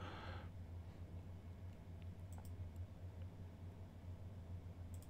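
A few faint computer mouse clicks, some about halfway through and a pair near the end, over a low steady hum.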